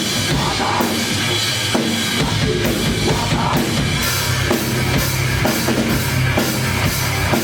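Loud live band music led by a drum kit, with a steady beat of bass drum and snare hits.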